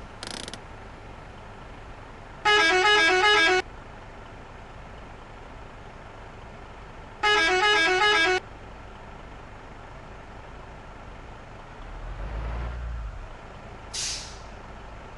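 Bus 'telolet' multi-tone musical horn of the Basuri type playing its quick warbling run of notes twice, each about a second long, some four seconds apart. Short hisses of air come right at the start and near the end, and a low engine rumble comes shortly before the end.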